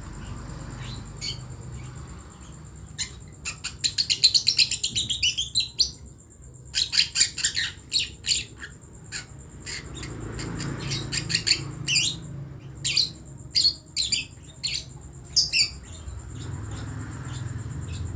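Young lovebird chick chirping as it learns to call: a quick run of short high chirps a few seconds in, then spaced chirps in twos and threes until near the end.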